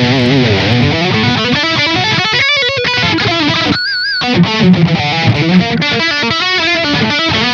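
SQOE SEST960 HSS electric guitar played through an amp: a run of single-note lines with wavering vibrato, a short pause about two and a half seconds in, then one held note wobbling in pitch before the playing picks up again.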